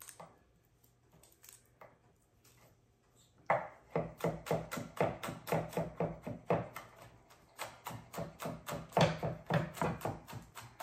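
Chef's knife chopping garlic on a wooden cutting board: a few light taps, then from about three and a half seconds in, rapid steady chopping at about five strokes a second.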